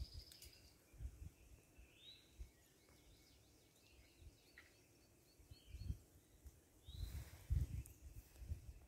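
Faint songbird chirps and short calls. Low bumps and rumbles come and go underneath, loudest near the end.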